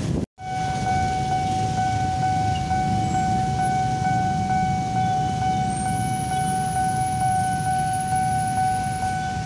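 Level-crossing warning alarm ringing as one steady high tone with a faint pulse about once a second, over a low rumble of traffic. It starts just after a short dropout to silence at the very beginning.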